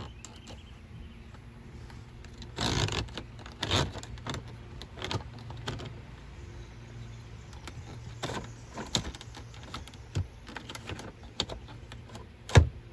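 Plastic replacement climate-control knobs on a 2000–2006 Toyota Tundra dash being turned and clicked through their settings to test them: scattered sharp clicks and knocks over a faint steady hum, with one loud knock near the end.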